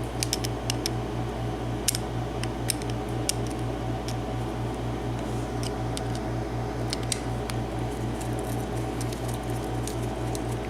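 Scattered small sharp clicks and taps of metal parts being handled as a pin-tumbler padlock is taken apart, most of them in the first few seconds, over a steady low hum that pulses about four times a second.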